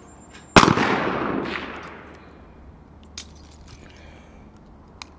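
A single shot from a .410 Thompson Contender single-shot pistol, its report fading away over about a second and a half. Later come two faint clicks as the break-open action is worked to reload.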